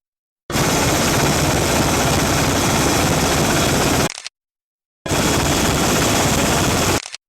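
Helicopter rotor and engine noise, loud and steady, cut off twice by sudden short silences.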